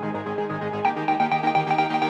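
Electronic background music: held synthesizer chords over a steady pulse, with a new chord coming in about a second in.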